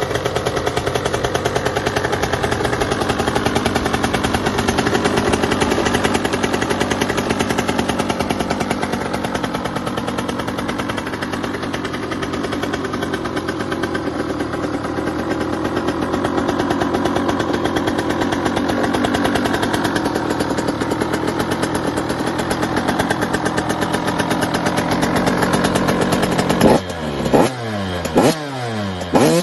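Two-stroke motocross bike engine running steadily with a fast, crackling rattle. Near the end, after a cut, a KTM two-stroke is revved in several quick throttle blips, its pitch rising and falling.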